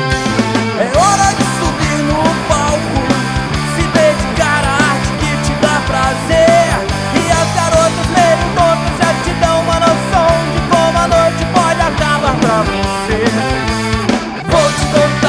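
Rock band playing an instrumental passage: steady drums, bass and guitars, with a melody line sliding between notes over them.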